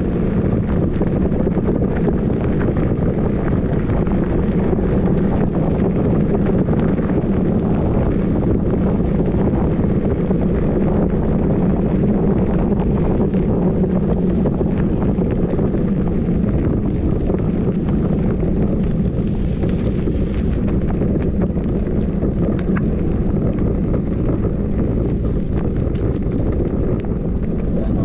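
Wind buffeting the microphone in a steady low rumble, as while riding along on an e-bike.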